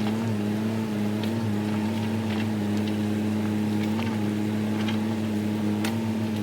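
Diesel engine of a compact land-clearing machine running steadily under a light, even load, with a few faint clicks and cracks over it.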